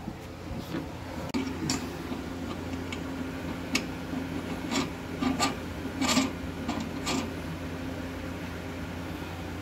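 A steel nerf-bar mounting bracket and its bolt being held and angled by hand to line up with the mounting holes: irregular metal scraping and rubbing with scattered sharp clicks.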